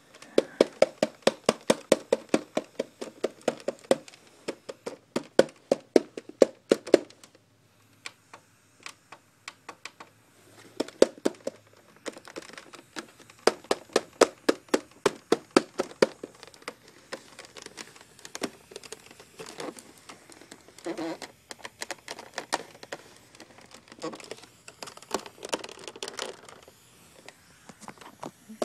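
Fast runs of sharp clicks and taps, several a second, broken by short pauses, from hands handling the plastic casing of a GPX under-cabinet LCD TV/DVD player.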